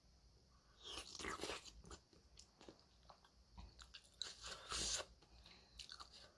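Close-up eating sounds: noodle soup taken from a plastic spoon with two noisy slurps, about a second in and again around four to five seconds, and wet chewing and small mouth clicks between them.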